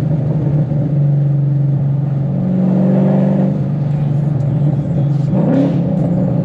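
Ford Mustang's 5.0 V8 heard from inside the cabin while driving, the engine note rising and falling several times with the throttle.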